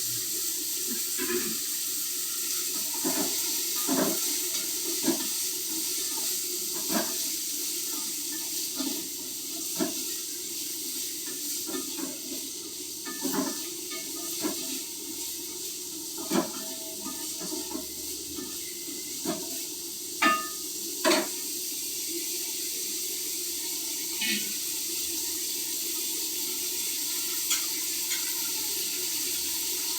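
Steady rushing of running water, with irregular knocks and clinks every second or two over it.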